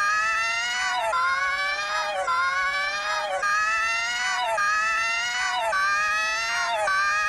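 Electronically processed, voice-like tone with many overtones, looping about once a second: each repeat rises slightly in pitch and then drops sharply.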